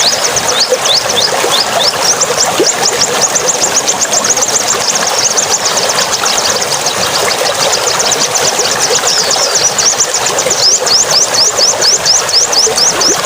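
A small songbird giving rapid, evenly repeated high chirps, several a second, over a steady rushing noise.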